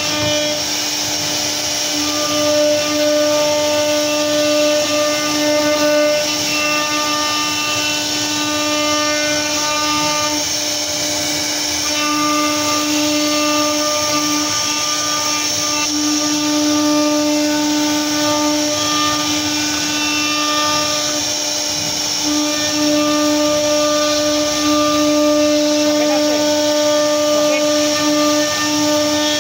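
CNC router spindle running at a steady high whine as its bit carves relief into a wooden board, over the hiss of the cutting.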